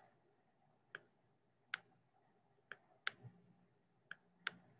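Faint computer mouse clicks, about seven, sharp and irregularly spaced, as a word is handwritten on screen.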